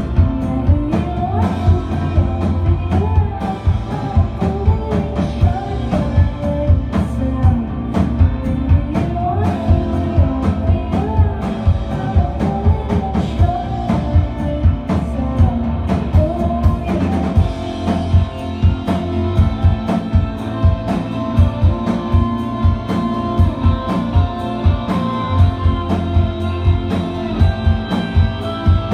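Live indie rock band playing, heard from the audience floor: electric guitars, keyboards and a steady drum beat, with a woman singing lead through roughly the first half, after which the instruments carry on without vocals.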